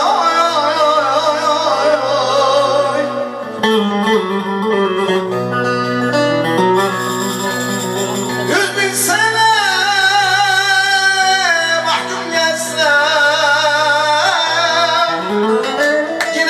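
A man singing a Turkish folk song through a microphone in long, wavering held notes, with a bağlama (long-necked lute) accompanying.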